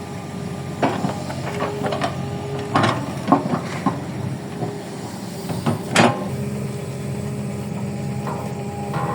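Toy excavator digging: its small motor hums steadily while the arm and bucket knock and click against the soil several times. The sharpest knock comes about six seconds in.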